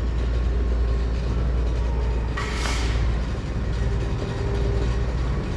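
Combine harvester running steadily with a low, even drone, and a short hiss about two and a half seconds in.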